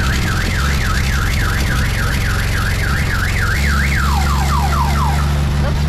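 Electronic siren cycling through its tones: a fast up-and-down warble for about three and a half seconds, then a run of quick falling whoops, then short chirps near the end. A steady low hum runs underneath.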